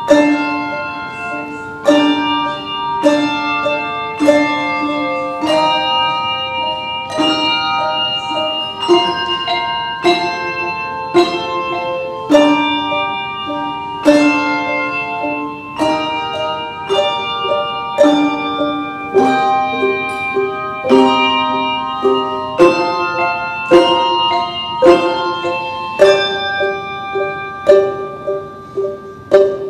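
Handbell choir ringing a piece in chords, with bright bell tones that ring on after each strike. The strikes come about once a second, and quicker near the end.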